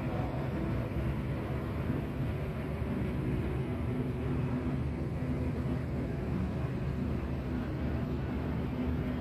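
Steady low rumble of distant engines and city traffic, with a low hum running through it.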